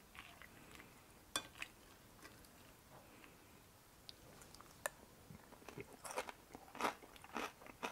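A person chewing a mouthful of smashed potato salad with crispy roasted potato pieces, crunching in a run of short strokes from about five seconds in. A few sharp, isolated clicks come before it.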